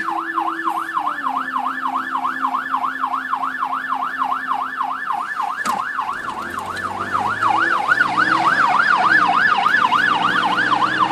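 Police car siren on a fast yelp, wailing up and down about four times a second, heard from inside the car it is pursuing. Vehicle noise underneath grows louder from about six seconds in.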